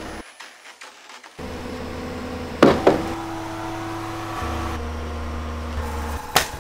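Woodworking knocks on timber: two sharp strikes close together about two and a half seconds in and one more near the end, over a steady low hum.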